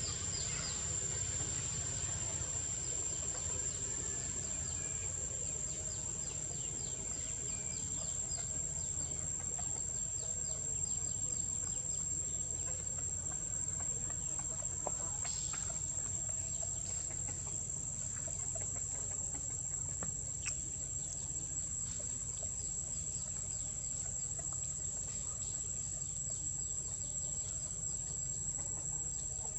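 Steady high-pitched insect drone, one unbroken tone, over a low outdoor rumble.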